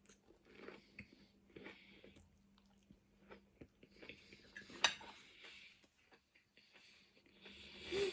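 Close-miked eating: soft, faint chewing and mouth sounds in a few bouts, with one sharp click of cutlery against a dish about five seconds in.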